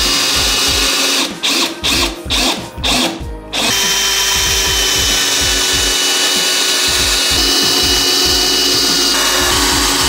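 Cordless drill boring into the underside of a wooden desk frame: its motor whines in about four short trigger bursts, then runs steadily, shifting pitch slightly a couple of times near the end.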